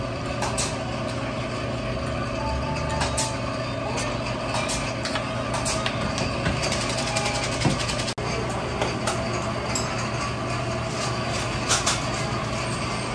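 Small metal pick clicking and tapping against a cast-iron egg-cake mold and a stainless wire-rack tray as the cakes are lifted out, many short sharp clicks over a steady mechanical hum.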